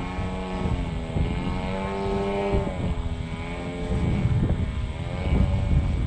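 Hangar 9 Timber 110 RC plane's motor and propeller droning overhead, the pitch rising and falling as it flies, with wind buffeting the microphone.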